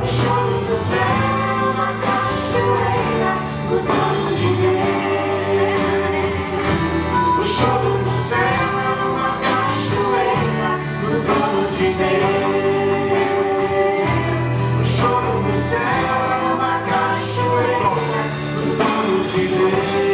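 Gospel music with group singing over a band with a steady beat.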